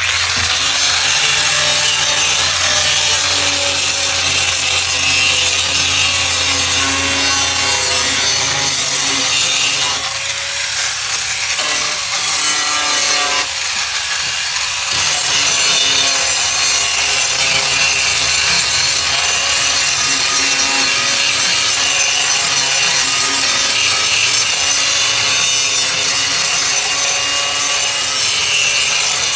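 Electric angle grinder with a sanding disc spinning up and then grinding steadily against rusted steel body panel, a loud continuous grinding over the motor's whine, sanding the corrosion off down to bare metal. The grinding eases slightly twice near the middle.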